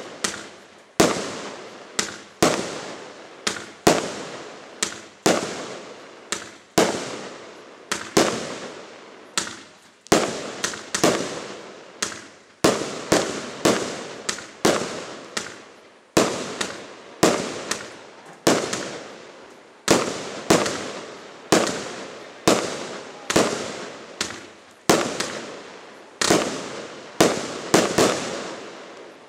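A rapid series of aerial firework shots, about one to two sharp bangs a second without a break, each trailing off into a fading tail as the glittering stars burst.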